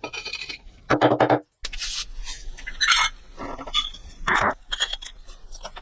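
Irregular short scraping and rubbing strokes of hand work on a clay floor bed being readied for tiles.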